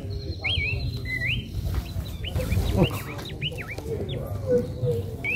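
A bird chirping over and over: short whistled notes, each rising or hooked in pitch, a few per second, over a steady low rumble.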